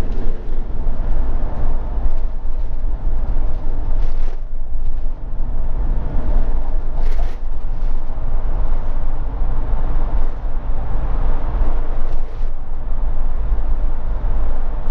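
Steady engine, tyre and wind noise inside a motorhome's cab while it drives along the motorway.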